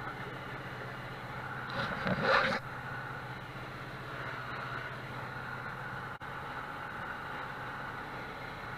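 Steady drone of a light single-engine airplane's piston engine and propeller, heard inside the cockpit, with a brief louder burst of noise about two seconds in.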